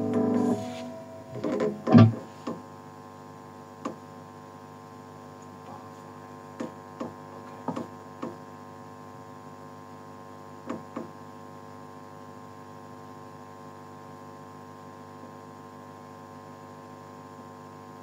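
Electric guitar amplifier humming steadily with the guitar plugged in but not played, after a last distorted note dies away at the start. A few short clicks and thumps sound over the hum in the first half, the loudest about two seconds in.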